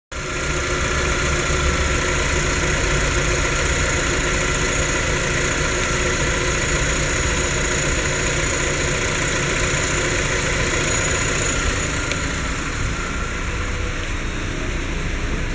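BMW E46 318i's 1.9-litre M43 four-cylinder petrol engine idling steadily, a little fainter near the end.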